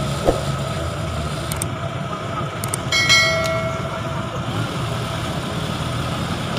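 Mitsubishi light truck's diesel engine running steadily as the loaded truck pulls slowly through deep mud ruts. There is a single knock near the start and a short high tone about three seconds in.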